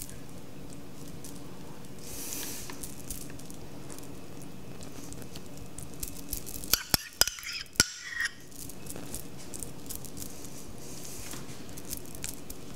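A metal fork spreading mashed avocado and scraping a ceramic bowl, with scattered light clicks and a cluster of sharper clinks of metal on ceramic about 7 to 8 seconds in, over a low steady room hum.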